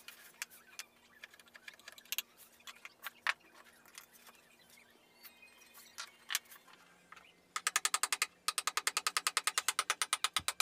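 Light, scattered clicks and knocks of wood chips and carving tools being handled. About seven and a half seconds in, a fast, even run of hammer taps on a medium-size carving punch ('rekhi') begins, about ten a second with a brief break, as marks are punched into the wood.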